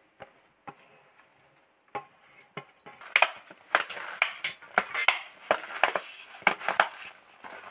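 A hand mixing grated radish, spinach and flour in a stainless steel bowl: a few faint knocks at first, then, from about three seconds in, steady rustling with many short clinks and knocks against the bowl.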